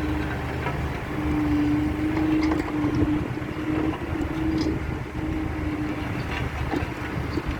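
Road roller's engine running steadily, with a low rumble and a steady hum that drops out and comes back several times.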